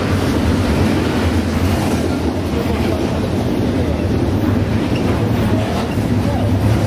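Double-stack container freight train passing at speed: a loud, steady rumble of wheels and cars on the rails.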